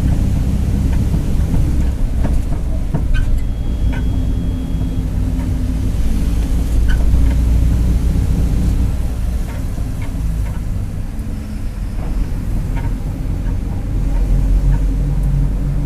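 Mercedes-Benz OF-1721 city bus running under way: a steady low diesel rumble whose pitch shifts a little, with the rear differential growling and scattered rattles and knocks from the bus.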